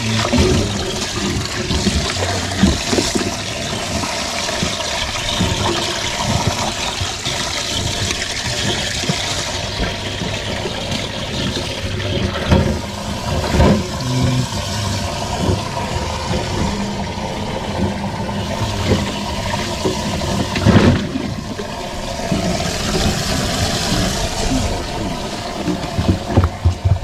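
Bass boat livewell aerator spraying a steady jet of water into the well, a continuous splashing gush. Splashes and a few knocks come through it as bass are handled in the water.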